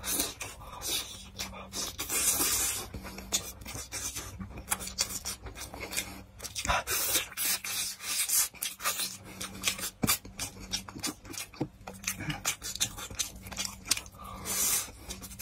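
Close-miked eating: chewing and sucking braised pork off rib bones, with wet smacks and clicks, a mouthful of rice near the end. Louder slurps come at about two seconds in, again around seven seconds, and near the end. A faint steady low hum runs underneath.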